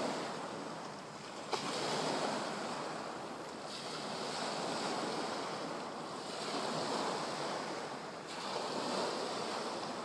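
Small waves breaking and washing onto a pebble beach, swelling and fading every two to three seconds, with some wind on the microphone.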